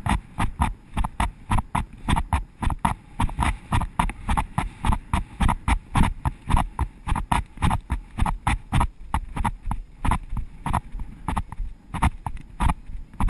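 Horse's hoofbeats on dry, hard ground in a quick, steady rhythm, heard from the rider's head-mounted camera.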